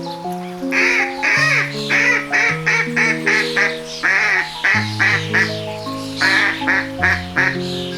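Background music of slow held notes, over a run of short, quick animal calls repeating about three times a second in two bunches.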